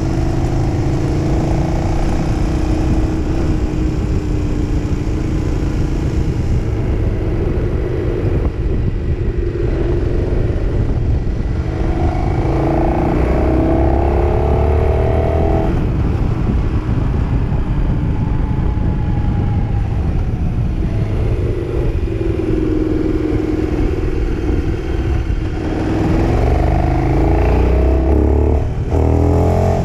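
KTM 1290 Super Duke R's V-twin engine heard on board as the bike rides through a roundabout, its revs rising and falling with the throttle. The pitch climbs as it accelerates about halfway through and again near the end.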